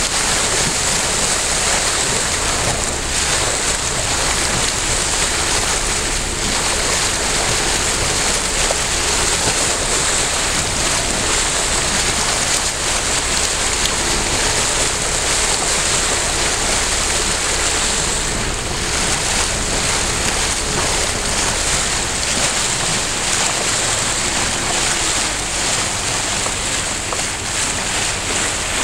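Choppy tidal-rip water sloshing and rushing around a boat, with steady wind noise on the microphone. A low rumble underneath fades out about three quarters of the way through.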